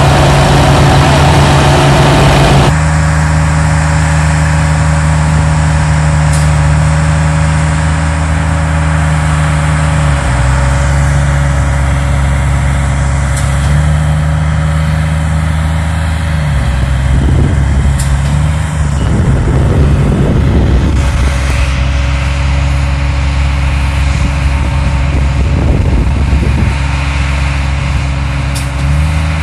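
A vibratory pile hammer pulling a steel sheet pile rattles loudly for the first few seconds, then cuts off. That leaves a heavy diesel engine running steadily, its pitch dropping and rising a few times as it is throttled.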